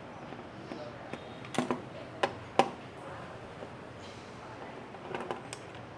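Screwdriver clicking and knocking on the fuel pump mounting screws of a motorbike's fuel tank as the pump is unscrewed. Three sharp clicks come between about one and a half and three seconds in, the last the loudest, and a few lighter ones near the end.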